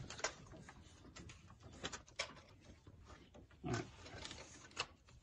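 Hands working a serpentine belt and spring-loaded belt tensioner in an engine bay: faint scattered clicks, taps and rubbing, with one short, low grunt-like sound a little past halfway.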